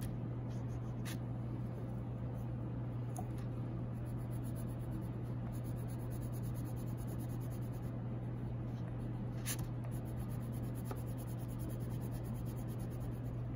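Wax crayon scribbling on paper: steady, rapid back-and-forth scratching as a strip of the drawing is coloured in, over a steady low hum.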